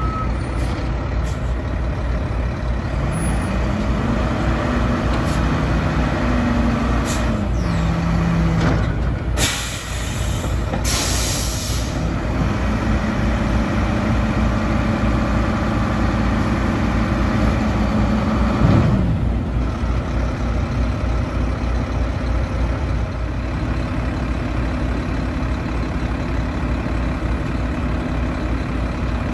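Mack LR garbage truck's diesel engine running, revving up and holding twice, for several seconds each time. Two short blasts of air hiss from the air brakes come between the revs, about ten seconds in.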